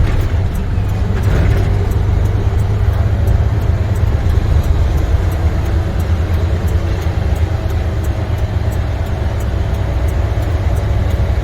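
Semi-truck's MaxxForce 13 diesel engine running at low speed, heard from inside the cab as a steady deep rumble, with a faint regular ticking over it.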